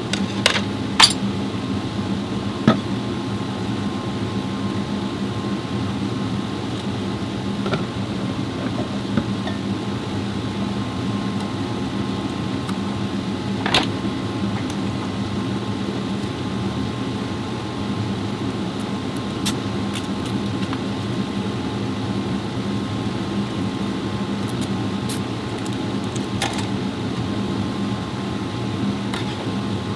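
A steady mechanical hum holding fixed tones, with a few sharp clicks and taps scattered through it; a small cluster of clicks comes near the start.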